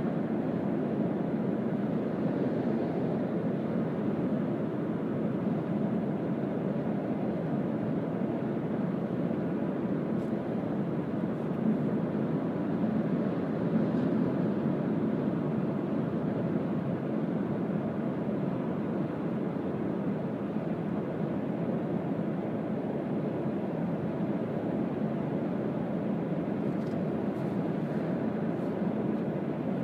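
Steady low rumble of tyre, road and engine noise inside the cabin of a Mazda CX-3 diesel cruising at expressway speed.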